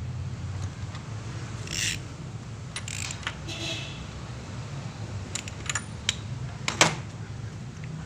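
A scattering of short metallic clicks and clinks, like small parts or tools being handled, over a low steady hum that fades slightly.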